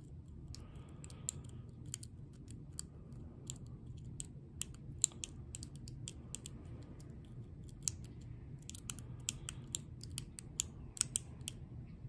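Irregular small metallic clicks and ticks of a lock pick and tension wrench working the pins inside a Lockwood 30mm padlock, over a low steady hum.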